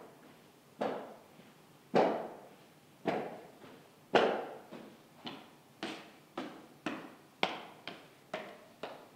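Hard footsteps echoing through a large empty lecture theatre, slow and spaced about a second apart at first, then quickening to about two steps a second after the middle.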